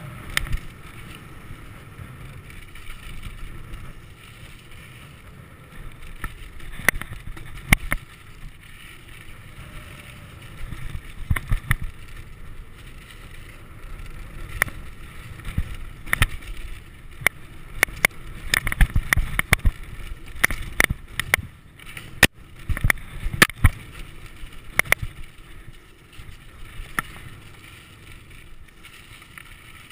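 Mountain bike ridden down a dirt trail: a steady rumble of tyres on dirt, broken by irregular sharp rattles and clacks as the bike bounces over the ground, busiest in the middle stretch.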